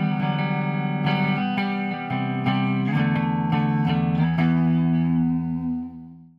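Electric guitar played through a Hughes and Kettner Tubemeister 18 valve amp head: a riff of picked notes and held low notes, cut off abruptly near the end.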